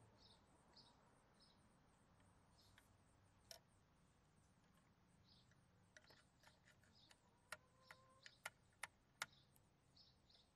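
Quiet handling of a toy side-loader garbage truck, with a run of about eight small sharp clicks and taps from its parts between about six and nine seconds in. Faint bird chirps throughout.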